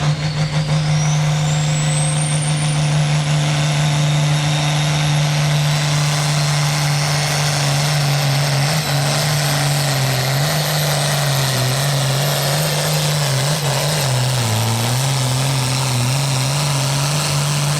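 Modified pulling tractor's engine held at full throttle through a pull, a steady, loud drone with a high whine that climbs over the first few seconds. The engine note sags a little about three-quarters of the way through, then picks back up before the sound drops off sharply at the end.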